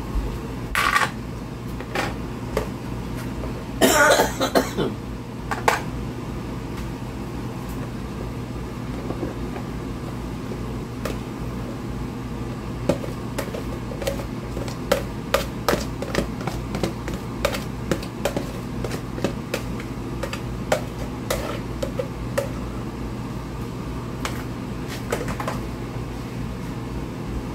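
Spoon and plastic food containers clicking and tapping as cooked cabbage greens are scooped from one container into another, over a steady low hum. A louder noisy burst comes about four seconds in.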